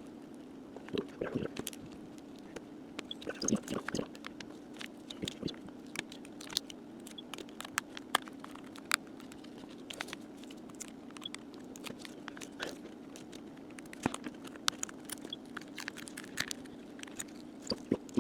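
Plastic pry tools worked around the edge of an LG Stylo 4's plastic back cover, making irregular small clicks, crackles and scrapes. A steady low hum runs underneath.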